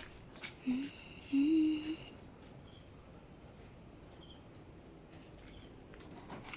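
Two short hummed vocal sounds, the second slightly rising in pitch and the louder, then a low background with a few faint high chirps.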